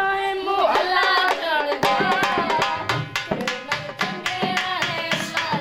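Dhol drumming a quick, even jhumar rhythm, with a melody line over it that bends in pitch.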